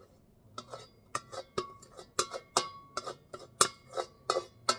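A spoon knocking repeatedly against a bowl as food is dished out, giving sharp ringing clinks about twice a second that start about half a second in.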